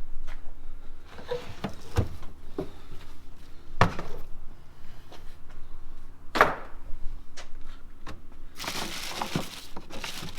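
Loose car parts being handled and set down: a series of sharp knocks and clanks, with rustling near the end.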